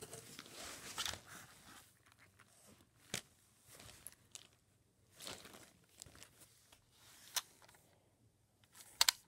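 Crinkling and rustling of a clear plastic accessory bag being handled and opened, in short bursts, with a few sharp clicks between them and a double click near the end, the loudest sound.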